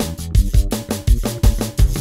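Zydeco song playing, an instrumental stretch with a steady, driving drum beat.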